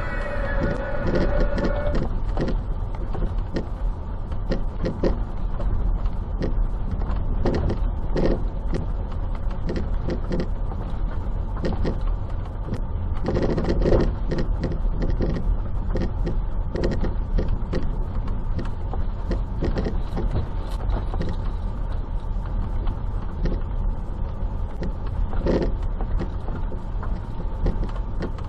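Front lower curved control arm ball joint on a BMW X6 E71 knocking again and again at irregular intervals as the car goes over small sharp bumps, over the steady rumble of the moving car. The joint has rusted after water got in through a torn boot.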